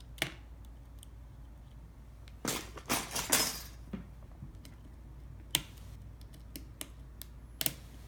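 Small metal hand tools clicking and scraping on the iPhone 6's internal parts and screws during disassembly. There are a few light, sharp clicks and a louder scraping, rattling stretch about two and a half seconds in.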